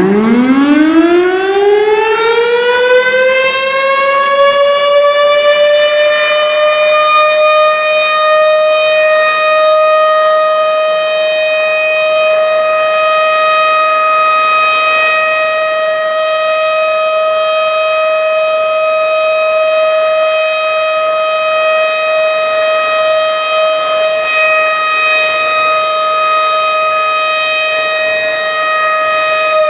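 Imsak siren winding up from a low pitch over about six seconds, then holding one steady high tone with a stack of overtones. The sound is the signal that imsak has arrived, the start of the pre-dawn Ramadan fast.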